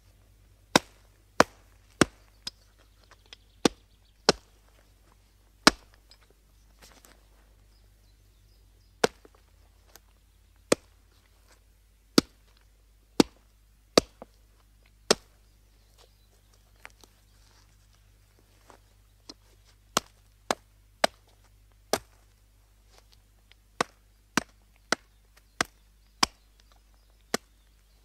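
Axe chopping into wood: sharp single blows at an uneven pace, often about a second apart, broken by pauses of a few seconds between runs of strokes.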